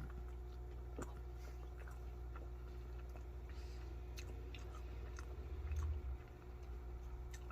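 Faint chewing of spicy cheese ramen noodles, with scattered small clicks, over a steady low hum.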